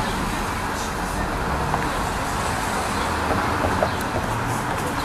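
Steady street traffic noise: the hum of passing cars.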